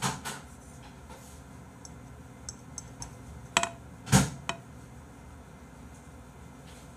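A few small clicks and taps of eating at a desk, with one louder knock about four seconds in as the rice bowl is lowered to the table.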